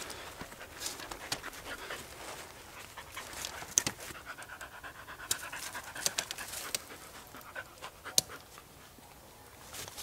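A dog panting close by, with rustling and a few sharp clicks as plastic tent clips are snapped onto the aluminium poles of a dome tent.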